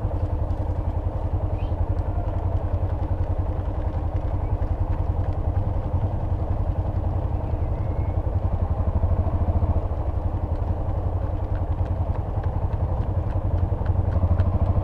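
Motorcycle engine running steadily, a low pulsing rumble that holds much the same level throughout.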